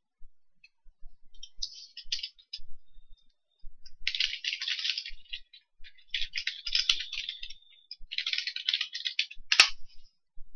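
Computer keyboard typing in four quick runs of key clicks as an email address and password are entered, followed near the end by one sharper, louder click.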